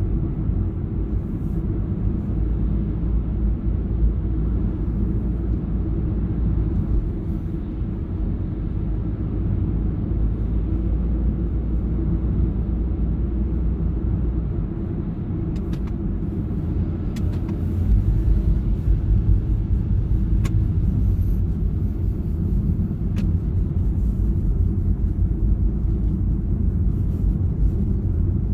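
Steady low rumble of a car driving, heard from inside the cabin: road noise from the moving car, growing a little louder about two-thirds of the way through.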